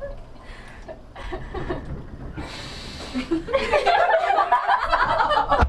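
Laughter that breaks out loud and choppy about three and a half seconds in, just after a brief hiss.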